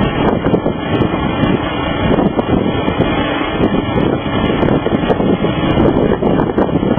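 Distant roar of a Boeing 747-200's four jet engines at takeoff power as the jumbo jet rolls down the runway, under heavy wind buffeting on the microphone. The noise is loud and steady.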